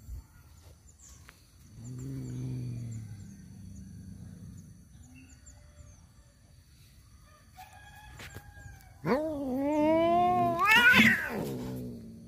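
Male cats in a fight standoff: a low drawn-out growling moan about two seconds in, then from about nine seconds a loud yowl that wavers up and down in pitch. This is the threat caterwaul of rival tomcats squaring off over a female.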